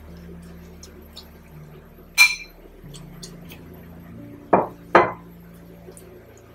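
Metal tongs and dishware clinking against a pan while bok choy is pushed into boiling water: three sharp clinks, about two, four and a half and five seconds in. Under them runs the induction hob's low steady hum.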